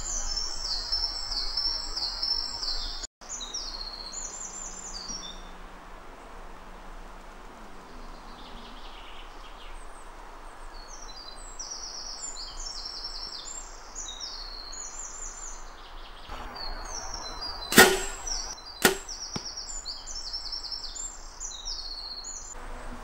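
A compound bow shot: one loud sharp snap of the string and limbs on release about 18 seconds in, followed about a second later by a second, smaller crack. Songbirds sing in short high repeated phrases throughout.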